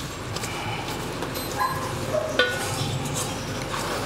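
Stainless steel mixing bowl being handled, giving two brief metallic clinks that ring for a moment, over a steady low background noise.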